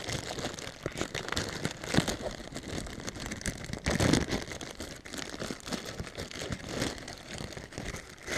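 Plastic packaging wrapper crinkling and rustling as it is pulled off a small 3D-printed model by hand, with a few louder handling knocks about two and four seconds in.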